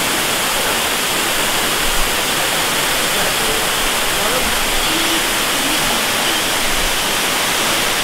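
Waterfall pouring steadily into its rock-walled plunge pool: a constant rush of falling water, with faint voices heard through it about halfway through.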